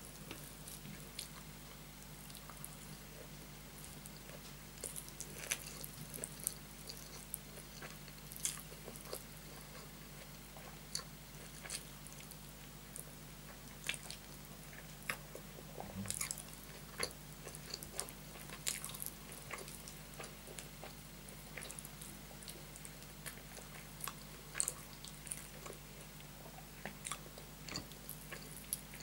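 Close-miked sounds of eating rice and curry by hand: fingers squishing and mixing rice with curry on the plate, and chewing with irregular wet clicks and smacks. A faint steady low hum sits underneath.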